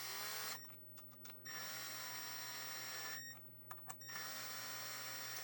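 Small electric screwdriver driving screws into holster hardware, running in bursts of about two seconds with short pauses between, a steady high whine over a low motor hum.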